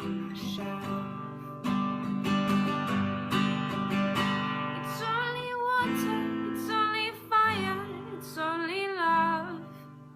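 Background song with strummed acoustic guitar. A singing voice comes in about halfway through, with wavering held notes.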